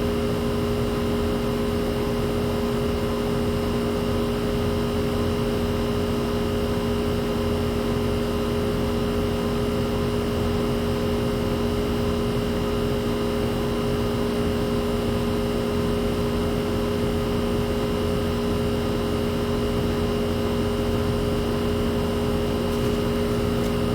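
Outdoor central air-conditioning condensing unit with a Copeland compressor running steadily: a constant hum with several held tones and no change in level.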